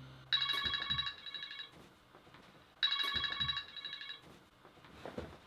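Phone ringtone: an electronic trilling ring, heard twice, each ring about a second and a half long, the sign of an incoming call.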